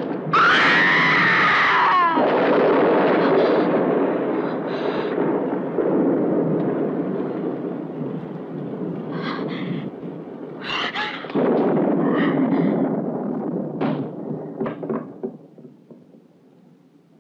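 A woman screams for about two seconds, then a long, loud rumbling crash with sharp knocks and clatters, which dies away over the last few seconds.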